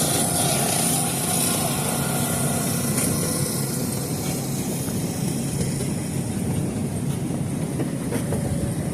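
Passenger train running at a steady pace, heard from inside a carriage: an even, continuous noise of the wheels on the rails.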